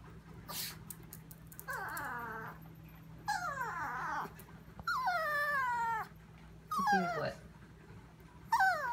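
Chihuahua whining in five drawn-out cries of about a second each, every one sliding down in pitch.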